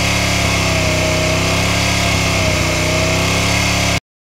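Vehicle engine held at raised revs, running steadily and loudly at close range, reading about 92 dB on a sound level meter. The sound cuts off abruptly about four seconds in.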